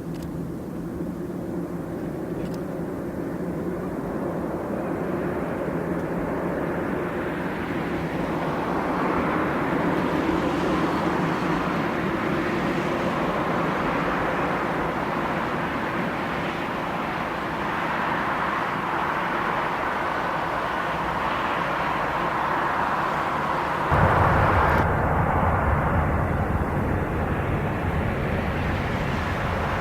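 Boeing 747-400 jet airliner's four turbofan engines at takeoff power, a steady jet roar that slowly grows louder. About three-quarters of the way through, a deeper rumble comes in suddenly and the sound gets louder still.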